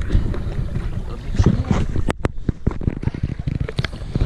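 Wind rumbling on the microphone, with scattered handling knocks and two sharp clicks about two seconds in.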